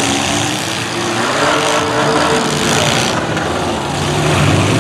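Engines of several mid-size demolition derby cars running and revving loudly as they push and ram one another, a dense steady din that swells near the end.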